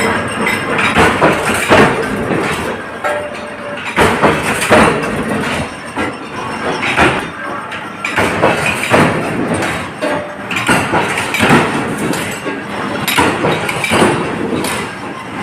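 Sheet cutting machine running, with a steady noisy clatter broken by repeated sharp strokes at uneven intervals of about one to two seconds.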